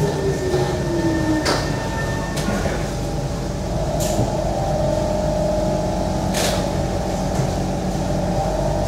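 Steady running noise of a moving passenger vehicle heard from inside, with a tone that falls in pitch over the first second and a half. A few short knocks or rattles come through, and a faint rising tone sounds in the second half.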